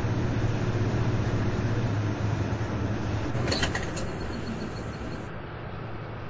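Washing machines running, a steady low motor hum under a broad churning noise. A few sharp clicks come about three and a half seconds in, and then the hum weakens and the sound grows quieter.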